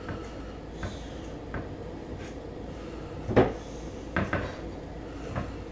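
Kitchen knife chopping cooked chicken breast into bite-sized pieces, the blade knocking on the cutting board in a few irregular taps, the loudest about three and a half seconds in.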